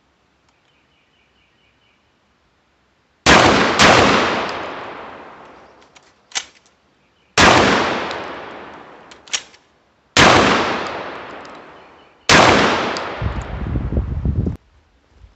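Hatfield SAS 12-gauge semi-automatic shotgun firing five rounds: two in quick succession about three seconds in, then three more spaced two to three seconds apart. Each report fades out over a couple of seconds, and there are short clicks between some of the shots.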